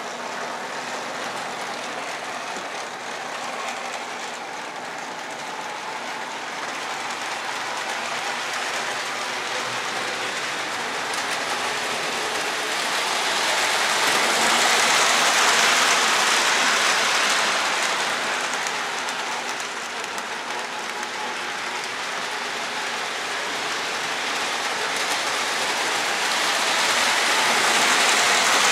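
Two coupled Lionel ALCO diesel locomotive units from the 1960s running on three-rail O-gauge track: a steady whir and rattle of the motors and wheels, louder as the train passes close, around the middle and again near the end.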